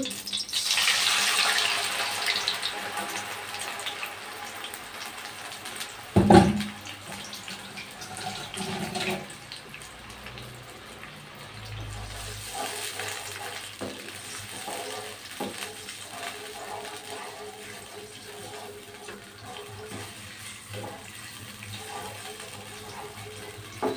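Watery ground chili, shallot, garlic and ginger paste poured into hot oil in a wok, hissing loudly at first and settling into a softer steady sizzle and bubbling as it is stirred with a spatula. A sharp knock about six seconds in.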